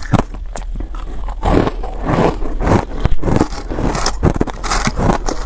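Reshaped ice, crunchy and powdery, being bitten and chewed: a dense run of irregular crisp crunches and crumbly scraping sounds. Fingers scrape and break more ice from the block in a plastic tub.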